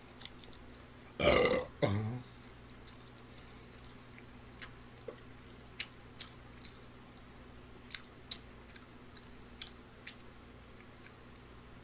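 A man burps loudly about a second in, in two quick pushes. Then he drinks from a glass of beer, with faint swallowing clicks every second or so.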